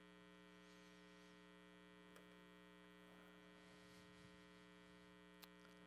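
Near silence with a faint, steady electrical hum, and two faint clicks.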